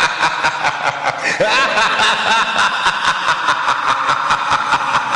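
Halloween sound effect of snickering, chuckling laughter over a rapid, regular pulsing.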